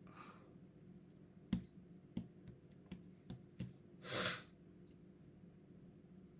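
A pen writing in a spiral-bound paper planner: about six light clicks and taps on the page over a couple of seconds, then a short breath a little past the middle.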